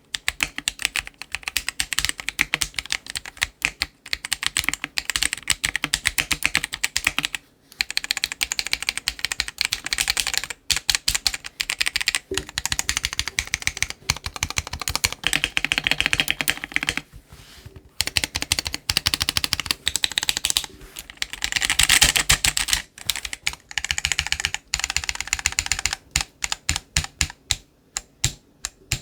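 Typing on a mechanical keyboard fitted with stock, unlubed Akko Vintage White linear switches: a fast, steady stream of keystroke clacks with a few short pauses.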